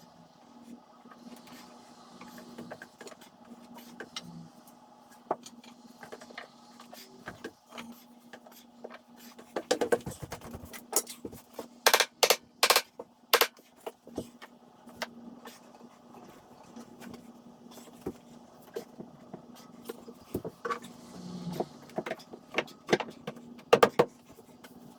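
Wooden stair-railing parts being handled and knocked into place during a dry fit: scattered taps and clunks, with a run of loud sharp knocks about ten to thirteen seconds in and more near the end, over a steady low hum.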